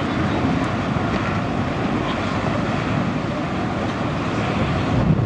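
Steady low rumble of a vehicle in motion, an even noise without distinct tones or knocks.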